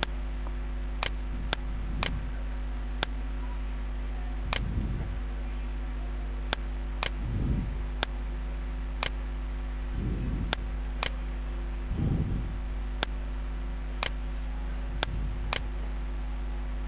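Computer mouse clicking irregularly, about twenty sharp clicks spaced a half-second to a second and a half apart, over a steady electrical mains hum; a few soft, low, muffled sounds come and go between them.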